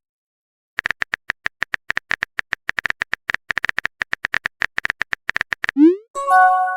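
Rapid, irregular clicks of a phone-keyboard typing sound effect, then near the end a short rising swoop and a bright chime: a chat-message notification sound.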